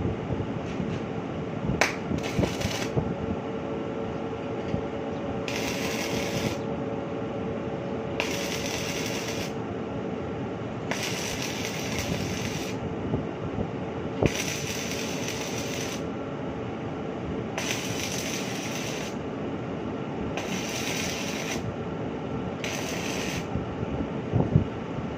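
Electric arc welding in eight short bursts of crackling hiss, each about one to one and a half seconds long and coming about every three seconds, as steel screw-conveyor flights are welded. A steady mechanical hum runs underneath.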